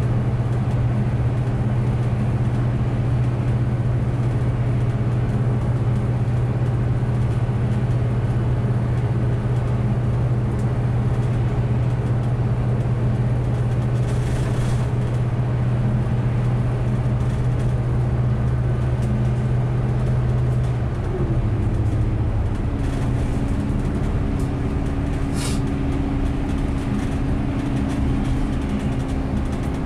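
Bus heard from inside the cabin while driving along, with a steady low drivetrain hum. About twenty-one seconds in the hum drops away and a higher steady tone takes over, as the bus changes speed. A couple of brief hisses come through over the running noise.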